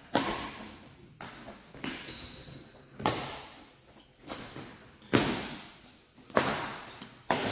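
Badminton rackets striking a shuttlecock in a fast doubles rally, about eight sharp hits roughly a second apart, each ringing on in the large hall. Short high shoe squeaks on the court floor come between the hits.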